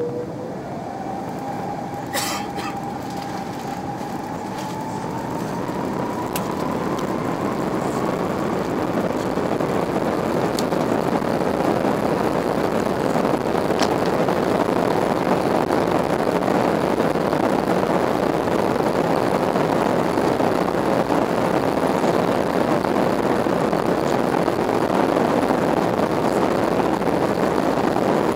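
Airbus airliner's jet engines heard from the cabin during the takeoff roll. A whine climbs in pitch over the first several seconds while the engine roar and runway rumble grow louder, then hold steady as the plane speeds down the runway. One sharp click about two seconds in.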